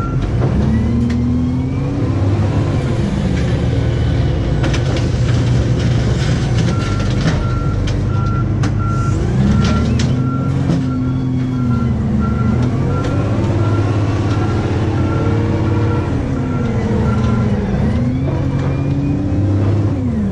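Diesel engine of a heavy yard loader with a car grapple running under load, its revs rising and falling several times as it manoeuvres. A backup alarm beeps steadily for about ten seconds in the middle while the machine reverses, with clanks and rattles from the grapple and frame.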